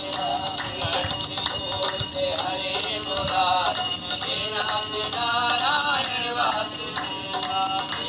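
Hindu devotional bhajan, a man singing to harmonium and dholak, playing loud and clear through the built-in speakers of a Redmi Book Pro laptop.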